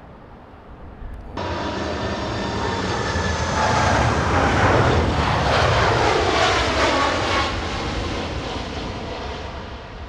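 Boeing 747 freighter's four jet engines passing close overhead on landing approach. The sound comes in suddenly about a second in, swells to its loudest midway with an engine whine that slides down in pitch as the aircraft goes past, then fades.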